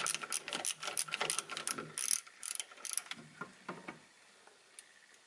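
Screwdriver ratchet clicking rapidly as screws are driven into a telemark binding's mounting holes, with the clicks thinning out about three seconds in and stopping about a second later.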